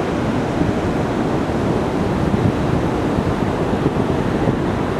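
Ocean surf breaking on a sandy beach, a steady rushing noise, with wind buffeting the microphone.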